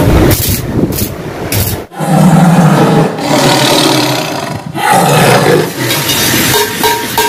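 Lion roar sound effect in an animated channel-logo sting, coming in loud about two seconds in after a brief break, with a second swell about five seconds in.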